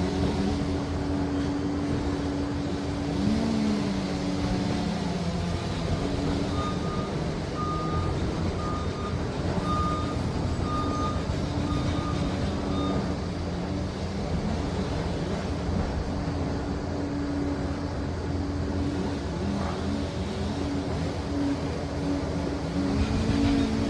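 Liebherr PR 746 crawler dozer's diesel engine running steadily under load, its pitch rising briefly twice as it is revved. A reverse alarm beeps repeatedly for several seconds midway as the machine backs up.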